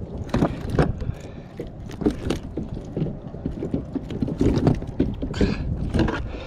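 Irregular knocks, thumps and clatter in a kayak as a freshly landed snook is handled and flops about, over a low rumble of wind on the microphone.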